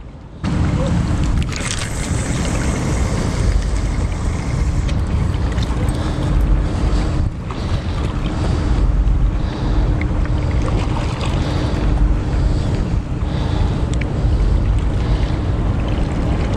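Wind buffeting the microphone with a loud, steady low rumble that starts abruptly about half a second in, over a faint steady hum.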